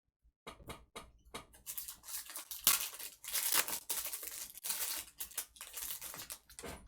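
Foil wrapper of a Topps Chrome football card pack being torn open and crinkled, an irregular crackling that runs from about half a second in until near the end.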